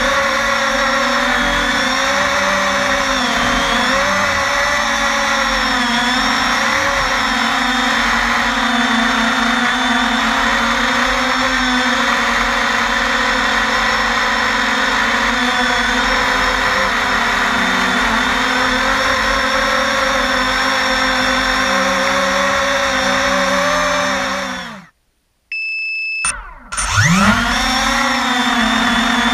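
Steady buzzing whine of a 250-size quadcopter's four MultiStar 2150 Kv brushless motors spinning Gemfan 5-inch props, heard from the onboard camera, its pitch wavering up and down with throttle. Near the end the motor sound winds down to silence for about a second, then spools back up with a rising whine.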